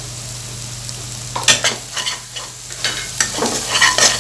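Onion and spice masala sizzling in oil in a frying pan. About a second and a half in, a metal spatula starts stirring and scraping it around the pan in quick, irregular strokes.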